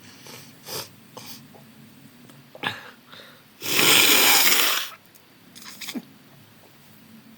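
A person with heavy nasal congestion: a few short sniffs and breaths, then one loud sneeze lasting over a second about halfway through, followed by more short sniffs.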